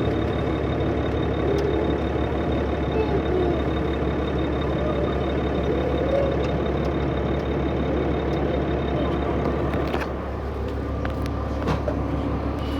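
Cummins ISL diesel engine of a 2005 New Flyer D40LF bus running steadily under way, with a thin high turbo whine over the engine hum. About ten seconds in there is a click, the whine stops and the engine note drops.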